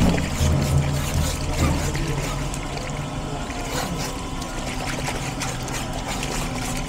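Running water pouring and splashing as meat is washed, with a low hum in the first couple of seconds.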